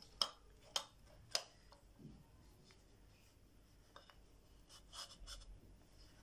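Faint clicks and taps of metal ceiling fan motor parts being handled and fitted together: three sharp clicks in the first second and a half, then a few softer ticks about four to five seconds in.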